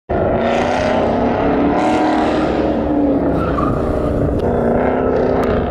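Car engine running hard on an autocross course, its pitch rising and falling as the driver works the throttle, with tires squealing in bursts about half a second in and again around two seconds in.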